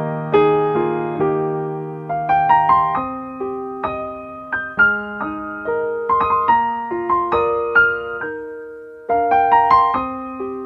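Slow, gentle solo piano music, single notes and chords struck and left to fade. The playing thins out to one fading note a little past the middle, then picks up again.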